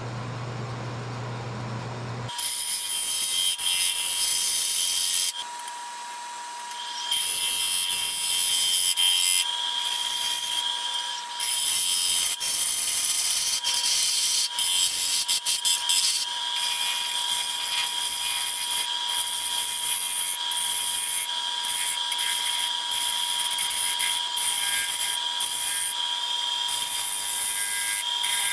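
Wood lathe spinning a large pecan bowl while a bowl gouge cuts the inside wall: a steady hissing cut over a high, steady machine whine. It starts about two seconds in and eases off briefly twice.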